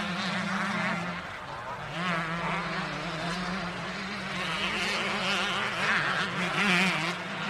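Motocross dirt bike engine running with a buzzy, wavering pitch as the throttle varies, easing off briefly just over a second in, then picking up again and loudest near the end.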